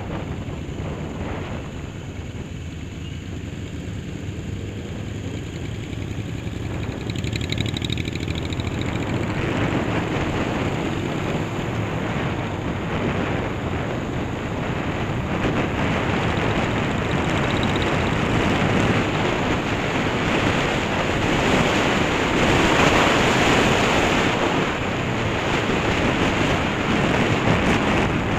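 Honda CB500 motorcycle engine running while riding, with wind noise on the microphone that grows much louder from about eight seconds in as the bike picks up speed.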